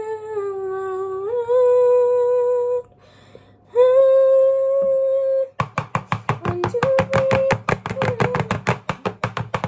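A person hums long held notes, the first stepping down in pitch and back up, then a second, higher one. About five and a half seconds in, rapid knocking starts, several knocks a second: metal cake tins of batter being tapped on the kitchen counter to level the mix, with faint humming over it.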